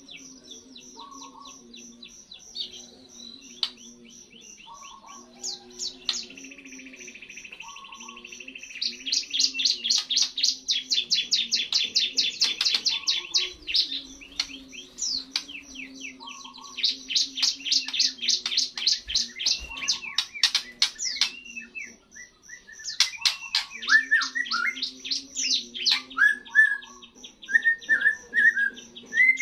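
Young white-rumped shama just out of its molt, singing in rapid twittering strings of fast-repeated high notes, in three loud bursts, with short slurred whistled notes near the end.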